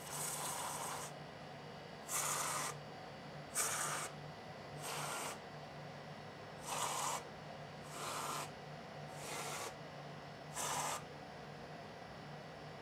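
Aerosol can of whipped topping squirting out dollops of whipped cream: eight short hissing squirts, each about half a second long, spaced a second or so apart.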